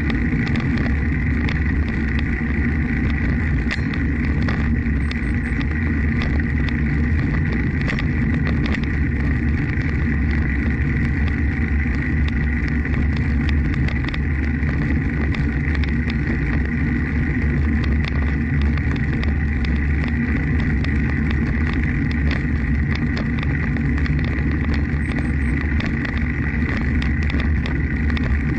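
Steady low rumble of wind buffeting the microphone of a camera moving along a paved path, with a faint, even high whine and light scattered ticks.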